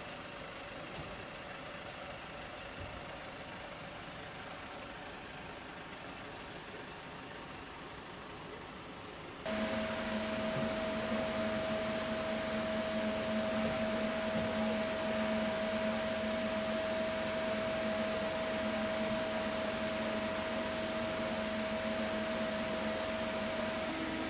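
Steady mechanical hum and noise, stepping up abruptly about nine and a half seconds in to a louder, even drone with two steady tones, one low and one in the middle range.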